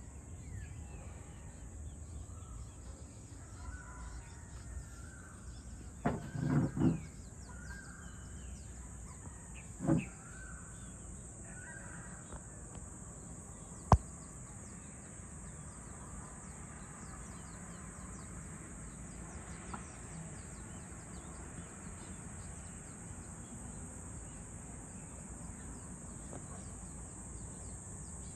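Rural evening ambience: a steady high-pitched insect drone with faint bird calls. Three loud calls come in quick succession about six seconds in and another near ten seconds, and there is a single sharp click about fourteen seconds in.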